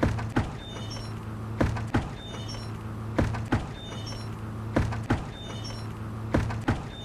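Bucket knocking in a regular loop: two knocks close together, repeating about every second and a half, over a steady low hum.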